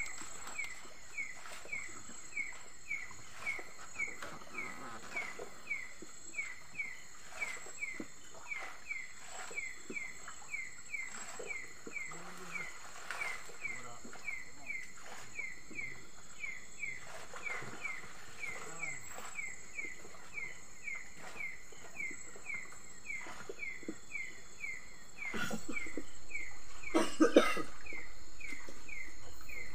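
Night chorus: a small animal repeating a short, falling chirp about twice a second, over a steady high insect drone. Near the end a broader rushing noise comes in, and a brief louder sound follows.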